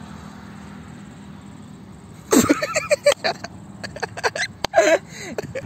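Young men laughing in short, breathy bursts that start about two seconds in, partly smothered behind a hand, over steady low background noise.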